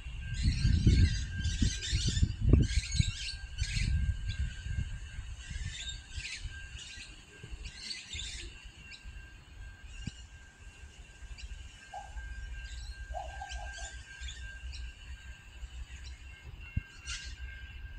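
Small birds chirping in short bursts, with a faint steady high tone underneath. A low rumble is strongest in the first few seconds, then fades to a soft background.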